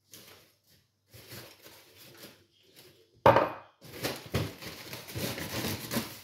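Kitchen handling noises while making cake batter: a few soft rustles, then a sharp knock about three seconds in, followed by about two seconds of dense rustling and scraping.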